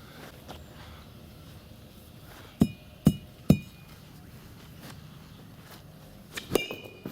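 Hard blows landing on a cheap sneaker as it is smashed: three sharp strikes about half a second apart, then two more near the end, several with a short metallic ring.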